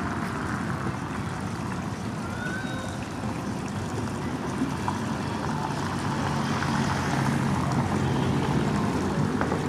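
Harbour background with a steady low boat-engine hum that grows a little louder in the second half.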